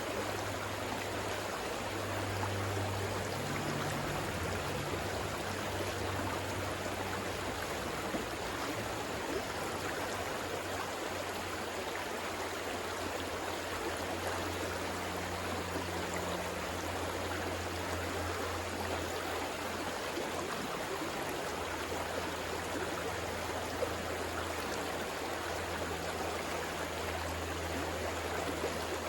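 River water flowing steadily, an even rushing with a low rumble that swells and fades.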